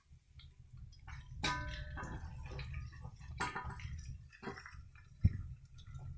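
Metal spatula stirring in a wok of fried chicken and tofu, giving a few scrapes and ringing clinks, with one sharp knock about five seconds in, over a low steady hum.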